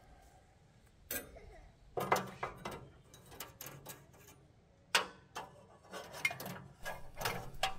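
Steel band-saw blade clinking and knocking against the sawmill's metal wheel housing as it is worked onto the wheels by hand, in a few scattered sharp metallic clicks, a cluster about two seconds in and a louder knock about five seconds in.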